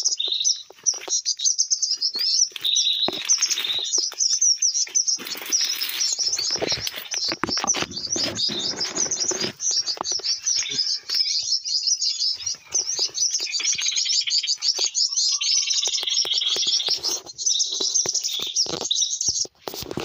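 Small birds chirping in fast, unbroken high-pitched twittering, with leaves and branches rustling in the middle of the stretch.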